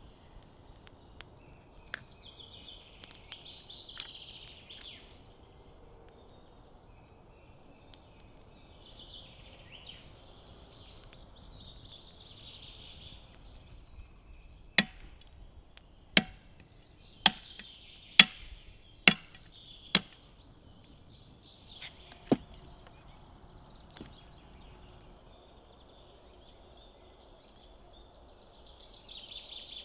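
A hand-forged axe chopping a raw beef bone lengthwise to split it open for the marrow: seven sharp blows in quick succession about halfway through, the last one after a short pause. Before them come light clicks of the axe being handled, with birds chirping now and then.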